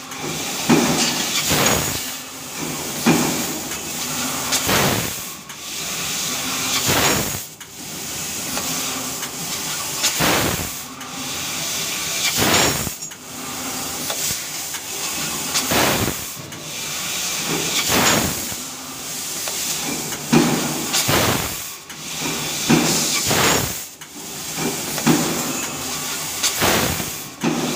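Fiber laser tube cutting machine at work: the gas jet from the cutting head hisses in spells of a few seconds, each broken off by a short gap, with sharp clicks of the machine moving between them.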